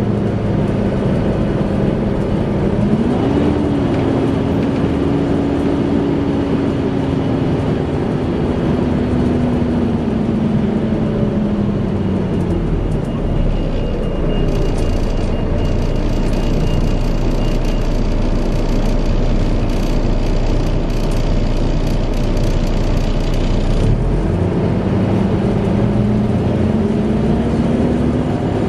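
Volvo B7TL bus's engine and cooling fan, with a hoover-like whining fan. The whine rises in pitch about three seconds in, sinks away by about twelve seconds into a low steady idle hum, then rises again near the end as the bus pulls away.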